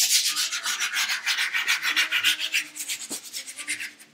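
Quick, rhythmic dry rubbing, about six strokes a second, fading in the last second.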